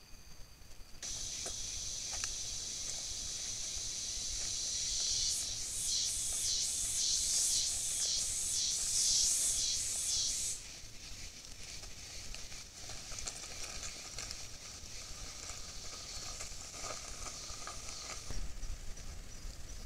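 Daytime insect chorus buzzing at a high pitch. It starts about a second in and swells into a loud pulsing rhythm of about two pulses a second. About halfway through it drops suddenly to a softer, steady hum.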